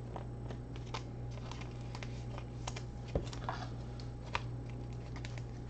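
Scattered light clicks and taps of typing on a computer keyboard, with one low thump about three seconds in, over a steady low electrical hum.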